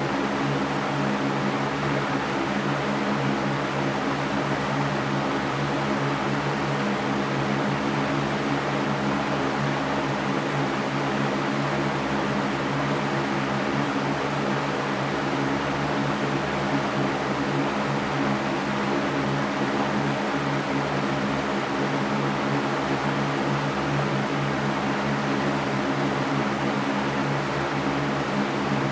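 Electric fan running steadily, a constant whooshing air noise over a low motor hum.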